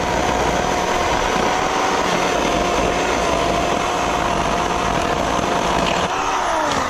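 Ryobi 18V One+ HP brushless chainsaw with a 10-inch bar running at full speed while cutting a conifer limb, its steady motor whine dipping slightly under load. About six seconds in, the whine falls in pitch as the saw winds down.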